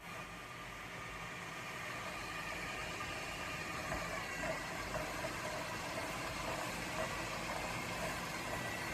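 Vacuum cleaner running steadily, an even motor and airflow hum with a faint high whine.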